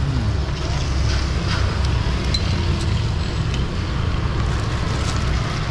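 Steady low rumble of a busy city street, with a few faint ticks.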